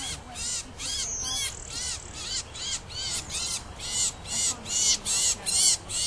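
Harsh distress calls of a small songbird caught in a mist net. The calls are short and arched, come about two or three a second, and grow louder toward the end.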